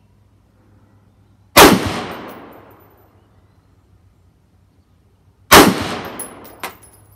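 Two AR-15 rifle shots about four seconds apart, each a sharp crack with a long fading echo. A lighter, sharp knock follows about a second after the second shot.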